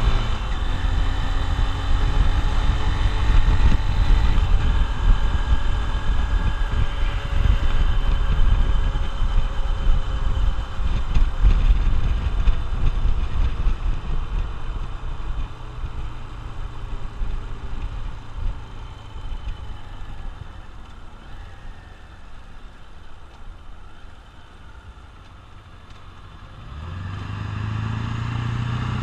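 Honda XR150L's single-cylinder four-stroke engine under way with wind rumble on the microphone, its pitch falling as the bike slows and the sound grows quieter. About two seconds before the end it settles into a steady even note, typical of idling.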